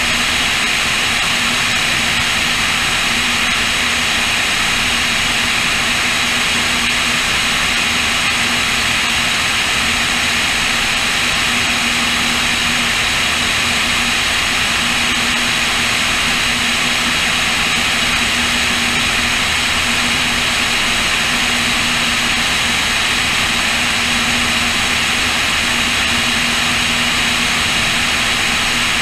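Cessna O-2A push-pull twin in steady cruise, its piston engines and propellers droning evenly under a heavy rush of wind over the wing-mounted microphone, with a steady low hum underneath.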